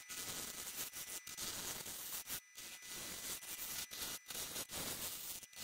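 Turning tool cutting across the face of a spinning pink ivory and Combretum schumannii blank on a wood lathe, truing up the bottom: a steady hiss of shavings broken by many brief gaps.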